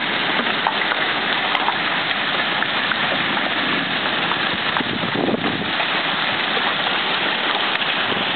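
Hailstorm with heavy rain: a steady downpour hiss, with scattered sharp ticks of hailstones striking.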